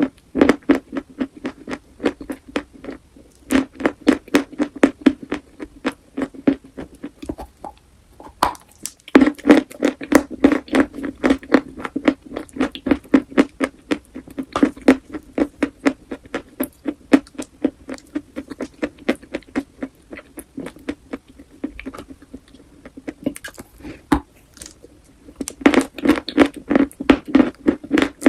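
Close-miked chewing of crunchy chalk: runs of rapid, sharp crunches a few per second, pausing briefly around a third of the way in and thinning out for a stretch past the middle before picking up again near the end.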